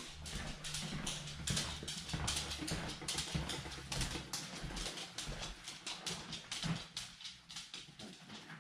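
Tin of Old Bay seasoning shaken over a pan of food: a run of quick rattling taps, several a second, that grows fainter near the end.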